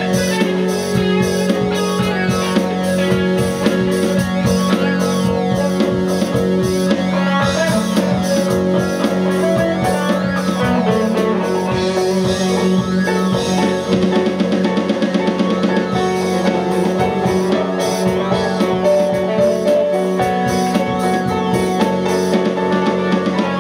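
A rock band jamming live in a small room: drum kit keeping a steady beat under electric guitars and keyboard, playing continuously and loud.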